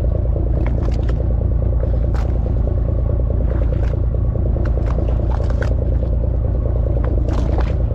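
Fishing boat's engine idling steadily with a low rumble and an even pulsing beat, with scattered light knocks and scrapes on deck.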